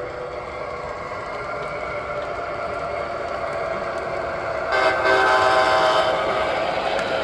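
Onboard sound effects of an Atlas O-scale GE P42 Genesis model locomotive: a steady diesel engine sound that grows louder as the locomotive pulls forward, with a horn blast of just over a second, about five seconds in.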